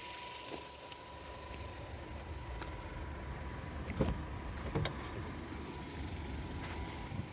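Car door unlatched and swung open: two sharp clicks a little under a second apart, over a low steady rumble.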